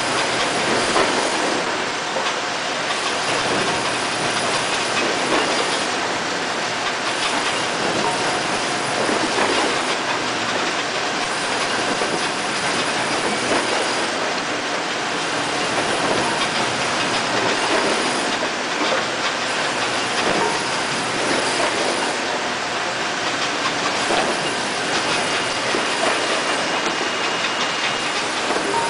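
Panel-saw outfeed line running: roller conveyors and a sheet stacker make a steady, loud industrial din with frequent knocks and rattles as the wooden panels are moved along.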